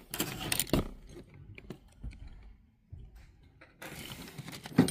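Small metal trinkets (old spoons, a button hook, beaded jewellery) clinking and scraping against each other in a small box as they are handled. There are a few sharp clicks at the start, faint ticks in the middle, and more clinking again near the end.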